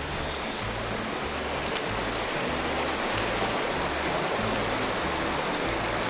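Mountain stream water rushing steadily, with background music's low bass notes pulsing underneath at about two a second.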